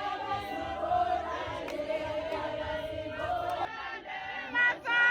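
A group of people singing and chanting together in many overlapping voices, growing louder with higher voices near the end.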